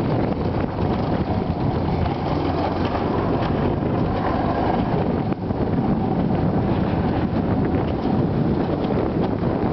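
Wind buffeting the microphone over the steady rumble of an alpine coaster sled running fast down its steel tube track.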